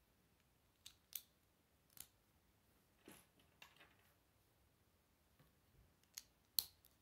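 Plastic Lego bricks being pressed and snapped together by hand: about half a dozen sharp little clicks scattered through, the loudest near the end, with soft handling rustle of the plastic between them.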